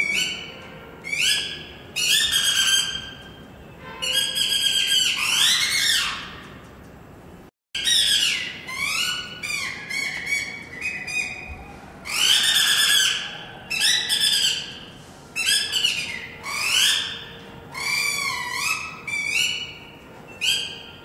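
Shrill squeaking puppet voices from a Rajasthani kathputli puppeteer's mouth reed (boli): rapid chirping calls that slide up and down in pitch. There is a brief break about seven and a half seconds in.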